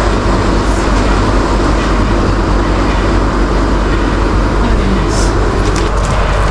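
A flour mill's machinery running with a steady, loud drone.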